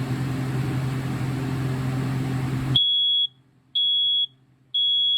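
First Alert SA300 ionization smoke alarm sounding on its test: three loud, high-pitched beeps about a second apart, each about half a second long, showing that the alarm works. Before the beeps a steady hum runs and cuts off suddenly just as the first beep starts.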